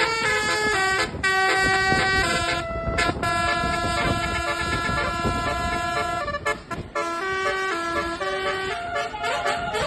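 Basuri musical air horn on a telolet bus playing a tune: a run of quick stepping notes, then one note held for about three seconds, then more stepping notes.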